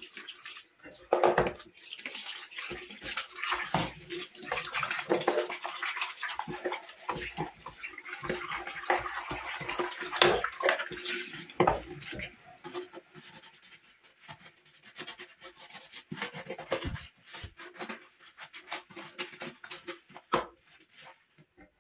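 Wet hand scrubbing, brush-like strokes in an irregular rhythm with water sounds, busy at first and thinning out after about twelve seconds.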